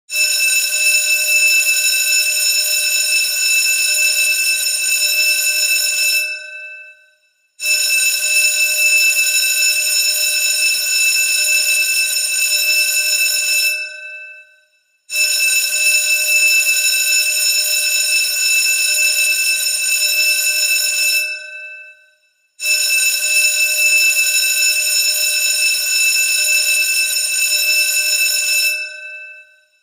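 School bell ringing loudly in four long rings of about six seconds each, separated by short pauses of a little over a second, each ring trailing off briefly as it stops.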